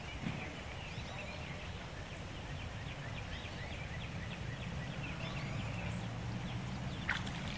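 A chorus of many short, high-pitched animal calls in quick succession over a low steady rumble, with a sharp click about seven seconds in.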